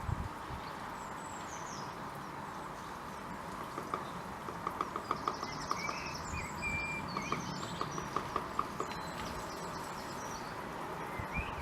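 Blue tit tapping inside a nest box, a woodpecker-like knocking in two quick runs of about five taps a second, with small birds chirping now and then.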